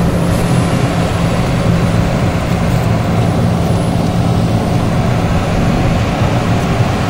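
Diesel engine of a Sany SR205 rotary piling rig running steadily under load as the crawler rig travels, a constant low drone.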